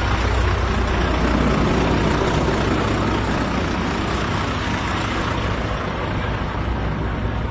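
Heavy lorry's diesel engine idling, a steady low rumble that grows fainter in the second half.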